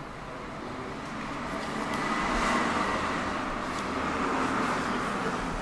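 A road vehicle passing by: a rush of noise that swells to a peak about halfway through and then slowly eases off.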